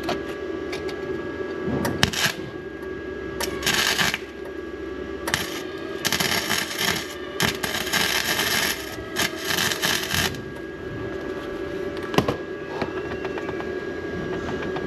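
Electric welder arcing on the steel of a car's suspension bracket in several crackling, hissing bursts, the longest lasting about four seconds in the middle with short breaks, over a steady hum.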